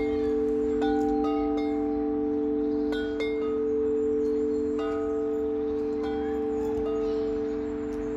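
Large metal tubular wind chime ringing in the breeze, with deep, long-sustained tones. The clapper strikes fresh tubes every second or so.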